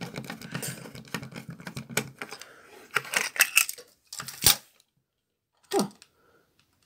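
Plastic toy train parts (a Plarail locomotive body and chassis) being handled: a rapid clattering rattle for the first two seconds or so, then a few separate plastic clicks and snaps, the sharpest about four and a half seconds in.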